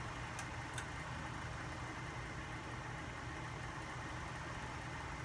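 Vintage ceiling fan running steadily: a low motor hum under an even rushing noise, with two faint clicks under a second in.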